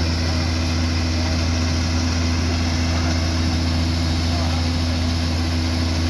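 New Holland 8070 combine harvester running steadily while its unloading auger pours harvested mung beans into a trolley, a loud, even machine drone.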